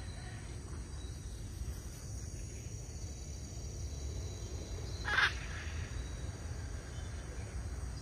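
Steady low outdoor background rumble with faint hiss. About five seconds in comes one short squawk from a bird, likely the free-flying parrot.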